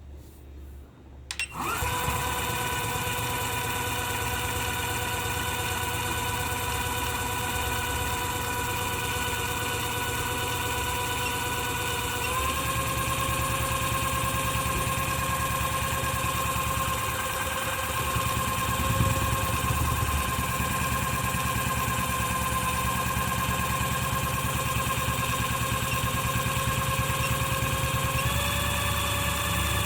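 Small electric motor starting up and then running with a steady high whine. Its pitch steps up slightly twice, once partway through and again near the end.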